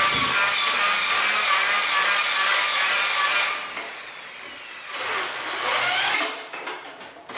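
Electric hand drill running steadily, stopping about three and a half seconds in, then spinning up again briefly near the end.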